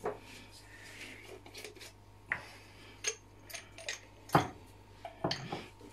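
Scattered light clicks and taps of a small spice jar and its plastic cap being handled on a wooden cutting board, about half a dozen, the loudest about four and a half seconds in, over a faint steady hum.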